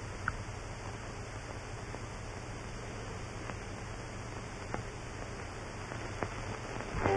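Steady hiss with a low hum from an old 1930s film soundtrack, broken by a few faint clicks. Orchestral music comes in right at the end.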